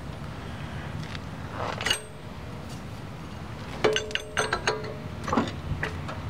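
A soft swish, then a quick cluster of light metallic clinks and rattles with a brief ring, about four to five seconds in.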